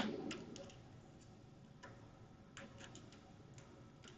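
Faint, irregular small clicks and taps of tools and parts being handled on a workbench, with one sharp knock at the start louder than the rest.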